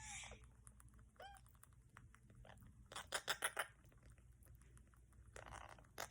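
Indian ringneck parakeet chicks eating vegetable chop: a short chirp about a second in, then a quick run of sharp beak clicks and smacks at about eight a second, around three seconds in.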